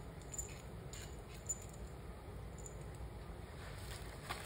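A few light metallic clicks and clinks of small metal engine parts being handled, over a faint steady hum.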